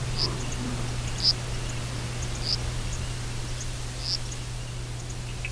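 Steady low electrical hum and hiss, with short high chirps recurring every second or so.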